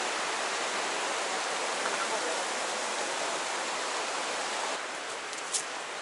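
Steady rushing hiss of a mountain stream running over rapids and a small weir. Near the end it drops away to quieter open-air sound with a couple of light clicks.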